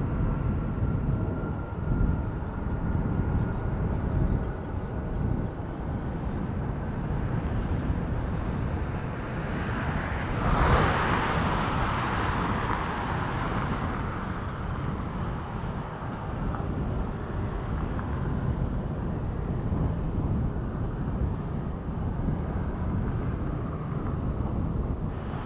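Jet engines of a departing Boeing 787-8 airliner running at high power, a steady rushing noise that swells to its loudest about ten to eleven seconds in as the aircraft passes, then eases off.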